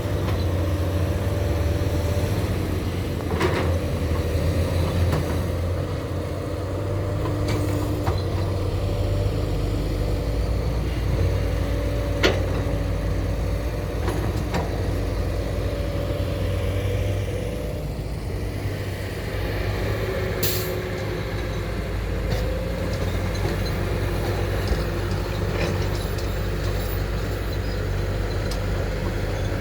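Excavator's diesel engine running steadily under work, with a hydraulic whine on top, and a few sharp knocks spread through it.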